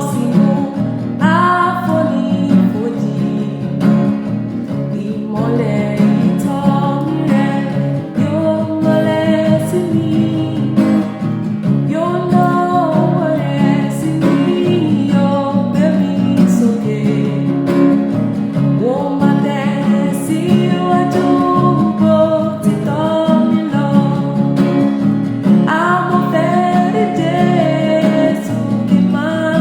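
A Yoruba hymn sung by a solo voice to guitar accompaniment, the melody moving in long sung phrases over steady strummed chords.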